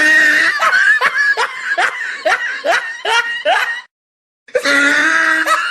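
A high-pitched laugh, a run of rhythmic 'ha' pulses about two to three a second, cuts off about four seconds in. After a short dead-silent gap, a second laugh starts.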